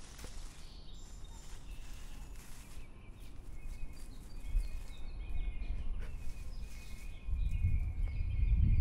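Outdoor ambience of small birds chirping intermittently over a low rumble that grows louder in the last second or two.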